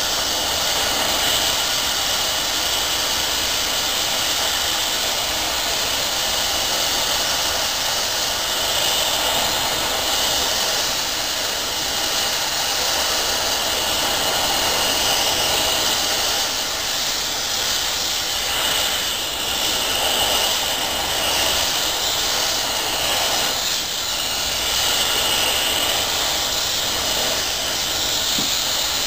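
Foundry furnace burner running: a loud, steady hiss.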